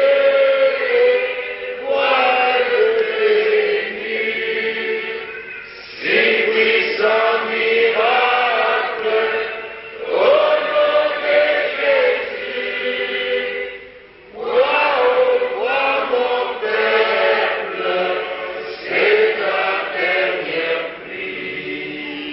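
A church congregation singing a hymn together, in sung phrases a few seconds long with short breaks between them.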